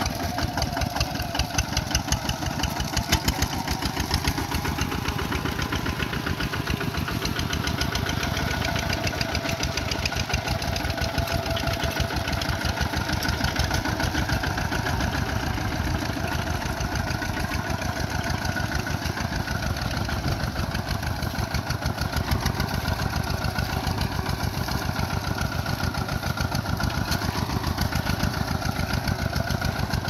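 Single-cylinder diesel engine of a Kubota RT155 two-wheel walking tractor running steadily with a fast, even chugging while it works through flooded paddy mud.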